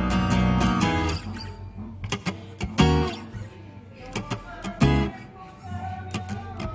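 Background music of acoustic guitar, strummed and plucked. It is fuller in the first second, then thins to sparse plucked notes.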